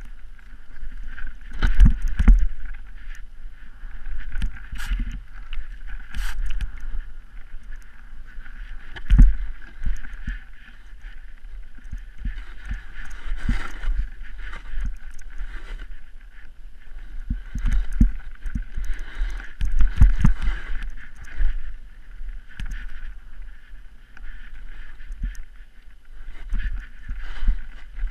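Snowboard riding down steep powder, heard through a head-mounted action camera. There is a steady rush of wind and snow noise, broken by repeated low thumps and knocks as the board hits and turns through the snow.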